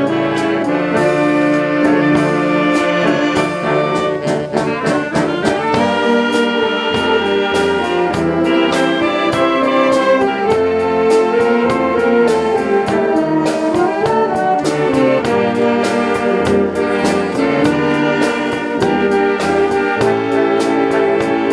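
Wind band playing a tune with brass to the fore, over sustained chords and a steady percussion beat.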